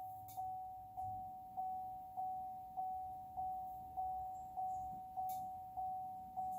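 An electronic warning chime dinging at one pitch, about one and a half times a second. Each ding starts sharply and fades before the next. It sounds like a car's reminder chime sounding with the ignition on and the engine off.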